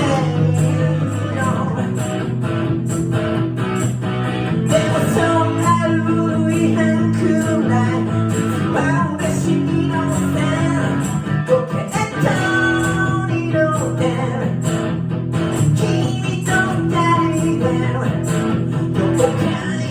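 A guitar strummed in steady rhythm as part of a live rock song, with a voice singing over it in places.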